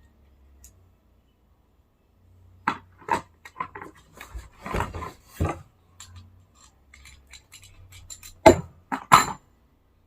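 Metal sockets and tools of a socket-wrench set clinking and knocking as they are handled and sorted, a string of sharp knocks with the two loudest near the end.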